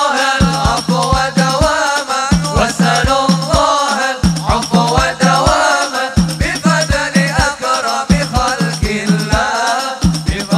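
Islamic devotional singing (sholawat): voices sing together over a steady drum beat of about three strokes a second, with a rattling shaker sound.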